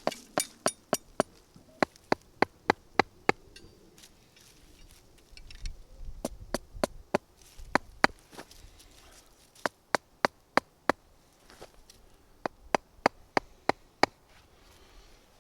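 Hammer strikes on forged steel tent stakes as they are driven in: sharp blows in quick runs of five to seven, about three a second, with short pauses between runs.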